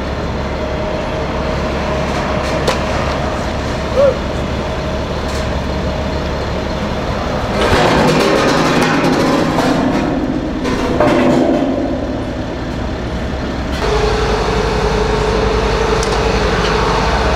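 Engine of a truck-mounted crane running steadily, a low hum with a constant whine over it. Around the middle there is a louder stretch of clanking and rumbling that lasts a few seconds.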